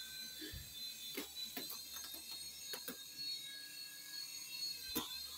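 A few faint, scattered clicks and knocks, about five of them, over a low steady room hum: handling noise as the phone and puppet are moved about.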